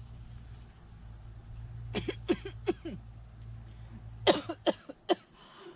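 A woman coughing in two short fits of about four coughs each, the second fit sharper and louder.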